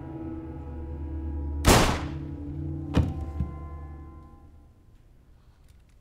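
A low sustained music drone fading out, broken by one loud thunk with a short ring a little under two seconds in and a smaller sharp click about a second later: a revolver's hammer snapping down during a game of Russian roulette.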